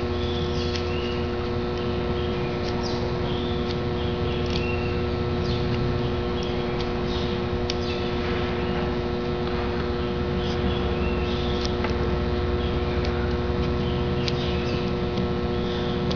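Steady electrical hum with several fixed tones, over which come faint, scattered clicks of scissors trimming a piece of EVA foam.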